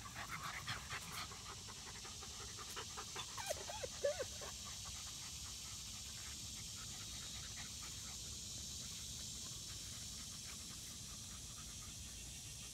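Rat terrier panting hard and fast, out of breath from running after a toy, most plainly in the first few seconds and then fainter. A couple of short squeaky notes come about three to four seconds in.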